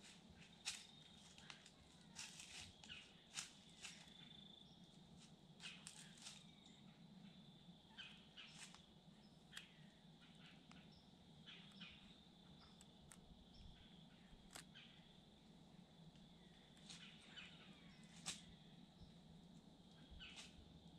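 Faint, quiet woodland ambience: a steady high-pitched drone with scattered short sharp ticks and bird chirps.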